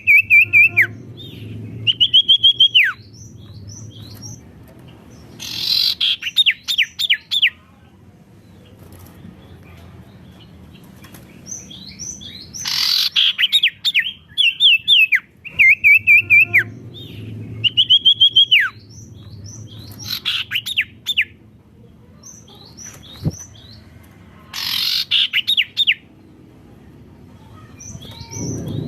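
A sirtu songbird singing loudly in bursts every few seconds. Each phrase is a high held whistle that drops off at the end, or a quick run of sharp, falling notes. A low steady hum sits underneath between phrases.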